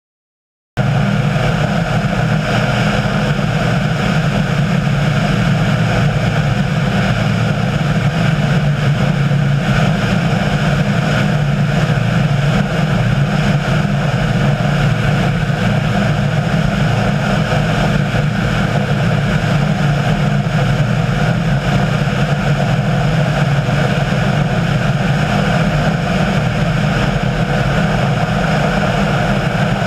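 An engine running steadily, starting abruptly about a second in and holding one unchanging pitch and level.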